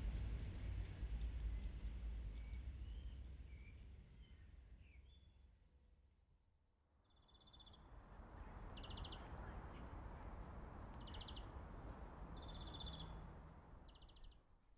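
Faint outdoor ambience of insects trilling steadily in a high, fast pulse, with a few short bird chirps early on. A low rumble fades out over the first few seconds, and in the second half five short buzzy calls sound about a second or two apart.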